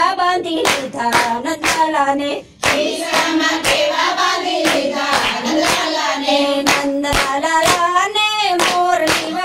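Group of women singing a Gujarati devotional bhajan in unison, with hand-clapping keeping a steady beat about twice a second. The singing and clapping drop out briefly about two and a half seconds in.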